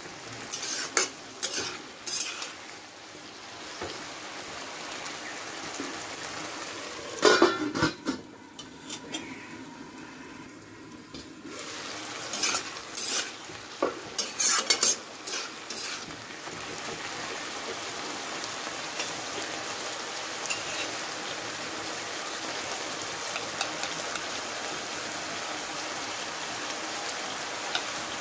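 Spatula scraping and clanking against a wok as a curry of bottle gourd leaves and vegetables is stirred, over a steady sizzle of the food frying. The stirring comes in bursts through the first half, with the loudest strokes about seven seconds in and again around twelve to sixteen seconds; after that only the steady sizzle goes on.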